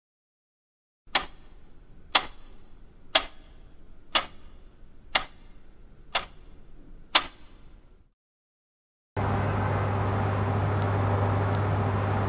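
A clock ticking: seven sharp ticks, one a second, over a faint hiss. They stop, and about nine seconds in a steady room tone with a low hum comes in.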